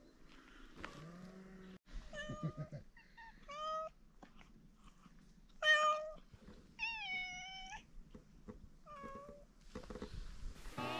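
Domestic cats meowing about five times, mostly short calls with one longer drawn-out meow a little past the middle.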